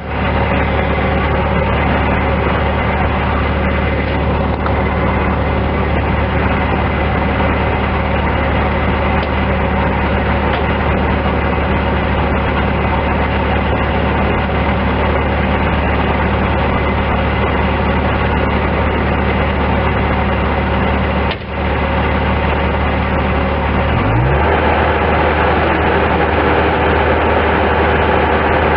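2005 Bobcat S185 skid steer loader's diesel engine running steadily at idle. About three-quarters of the way through, it is throttled up, its pitch rising quickly and then holding at a higher, steady speed.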